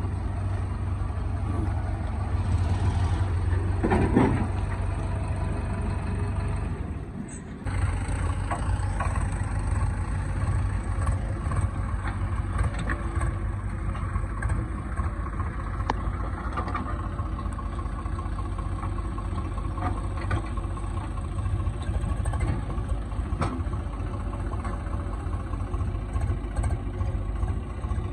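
Heavy diesel engines running steadily: first a JCB 3DX backhoe loader on the move, then, after a short break about seven seconds in, the backhoe digging beside a Swaraj 735 FE tractor. A low drone, with occasional sharp knocks.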